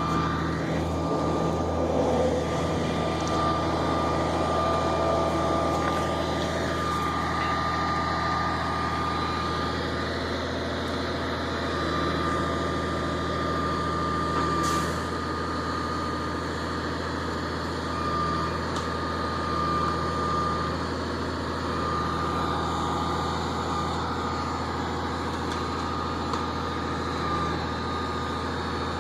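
Pulp truck's diesel engine running steadily, with a high whine that comes and goes every few seconds.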